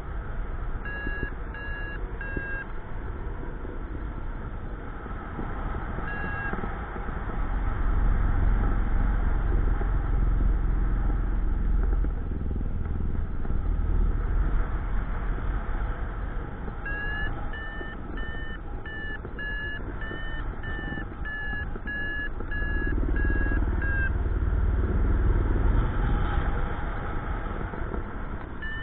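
Paragliding variometer beeping in short pulses, about two a second, signalling climb in lift: three beeps about a second in, one more a few seconds later, then a long run of beeps in the second half. Steady wind rush on the microphone from the flight underlies it and is the louder sound, swelling twice.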